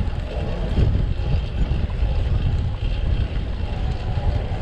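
Wind buffeting the microphone of a camera riding a bicycle fast through city traffic: a steady low rumble with street traffic running underneath.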